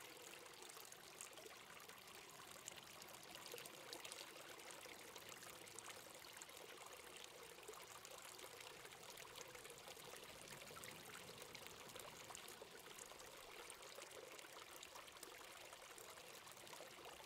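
Faint, steady flowing and trickling water ambience, even throughout with no distinct splashes.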